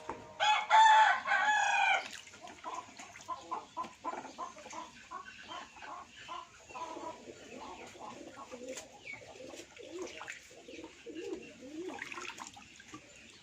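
A rooster crows once, loudly, about half a second in, lasting about a second and a half. After it come soft pigeon coos and scattered small bird calls.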